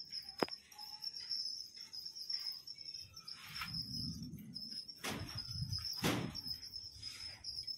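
Steady high-pitched insect chirring, with a sharp click just under half a second in and two louder thumps about five and six seconds in.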